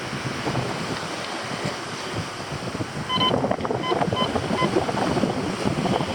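Digging into garden soil to recover a metal detector target, with crunching and scraping that grows busier about halfway through, when a few short beeps from the metal detector also sound. Wind on the microphone throughout.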